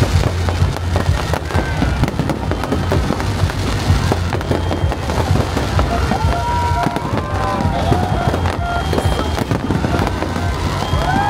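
Aerial fireworks going off in a dense, continuous run of bangs and crackles, with music playing underneath.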